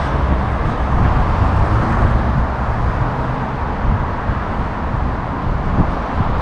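Steady wind rumble and rushing on the microphone of a GoPro action camera riding along on a bicycle, with no breaks.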